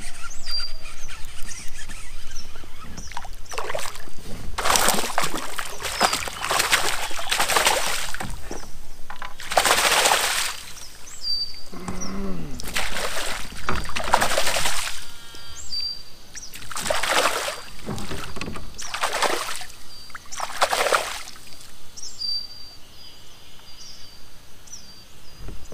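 A hooked fish splashing and thrashing at the water's surface beside a kayak, in six or so bursts of a second or two each, during a tough fight. Small birds chirp in the background.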